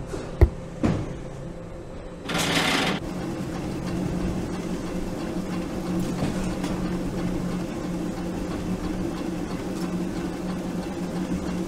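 Factory conveyor machinery sound effects: a few sharp clicks, a short burst of hiss about two seconds in, then the machine running with a steady low mechanical hum.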